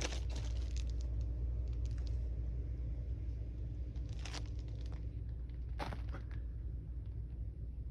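Plastic vapor-barrier sheeting on a crawl-space floor crinkling and crackling underfoot as someone moves across it, with a few sharper crackles about four and six seconds in. A steady low hum runs underneath.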